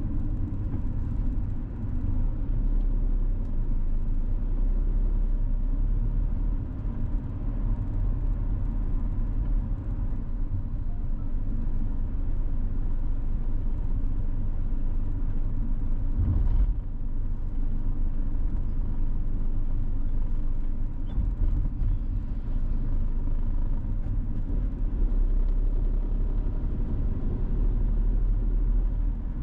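Steady low rumble of a vehicle driving on the road, engine and tyre noise together, with one short thud about halfway through.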